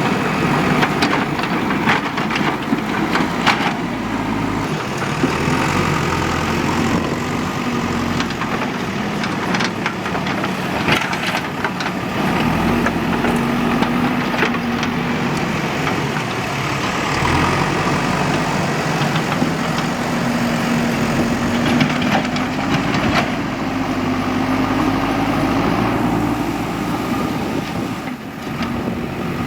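Diesel engine of a backhoe loader running steadily, its note swelling at times as it works, with occasional sharp knocks and clanks.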